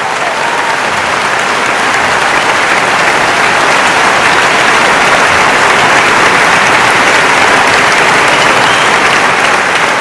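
Audience applause, steady and loud, a dense even sound of many hands clapping.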